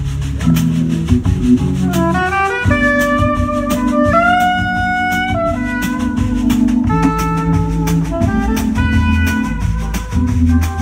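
Live jazz trio of saxophone, Hammond organ and drum kit playing a groove: the saxophone carries the melody, holding one long note about four seconds in, over sustained organ bass tones and a steady drum beat.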